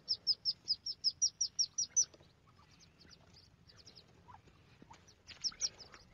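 Ducklings peeping: a fast, even run of short high peeps, about seven a second, for the first two seconds. Then come scattered fainter peeps, and a short cluster of louder ones near the end.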